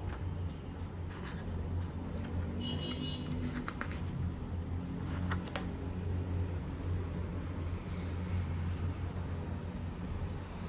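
Steady low hum with scattered small clicks and rustles, like handling packaging, and a short hiss about eight seconds in.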